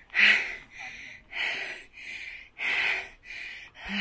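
A person breathing hard close to the microphone, a louder and a softer breath alternating about every 1.3 seconds, out of breath while walking in the heat.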